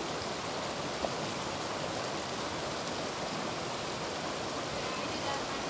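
Steady rush of a shallow, rocky river running over small rapids, with one short tick about a second in.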